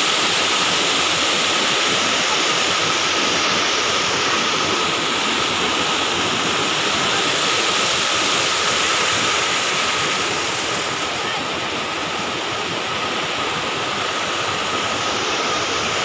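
Water rushing over rocks where a small cascade pours into a river: a steady, unbroken rush that eases a little in the second half.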